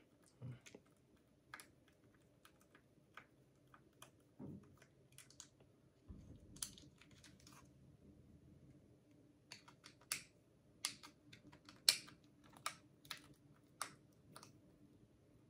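Faint, irregular clicks and light taps of a cordless hair clipper being handled as its housing cover is worked off. The clicks come more often in the second half.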